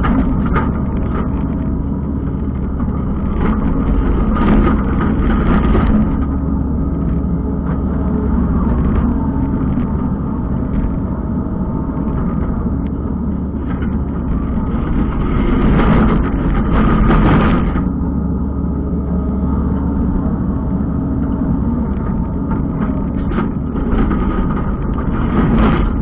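Kubota skid steer's diesel engine running steadily while working, louder twice as it takes load, a few seconds in and again past the middle.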